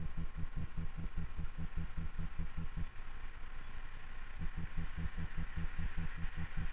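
Low, rhythmic thumps of wind buffeting the microphone, several a second, over the faint rumble of an approaching freight train hauled by an electric locomotive; the train noise grows louder near the end.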